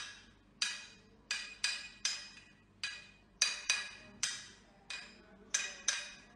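A hammer tapping the back of a metal cleaver-like blade held against a man's hair to cut it. About a dozen sharp metallic clinks come at roughly two a second, unevenly spaced, and each rings briefly.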